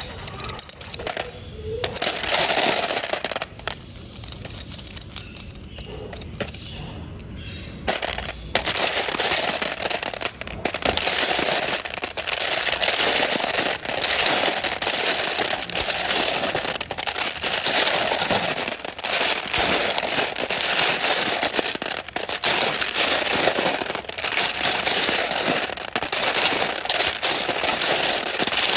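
Glass marbles clattering and clicking against each other and a metal spoon as it is worked through a cup full of them: a dense run of rapid clicks, quieter for a few seconds before becoming continuous.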